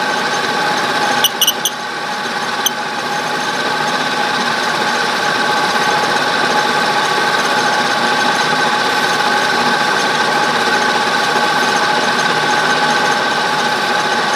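Holbrook B13 lathe running at 800 RPM with two metal pieces forced together end to end for friction welding: a steady metal-on-metal rubbing with a whine that holds several steady tones. A few sharp clicks come about a second and a half in, and the sound grows louder over the next couple of seconds as the contact takes hold, then stays steady.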